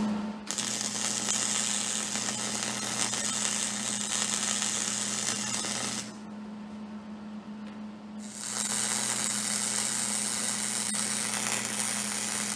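Electric arc welding on steel: the arc's steady crackling hiss with a low buzz under it, in two runs with a pause of about two seconds a little past the middle, as washers are welded onto a steel handle.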